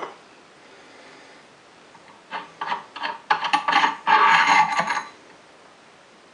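Metal hand tools and machine parts clinking and clattering as they are handled: a few separate clicks about two seconds in, then about two seconds of denser rattling metal.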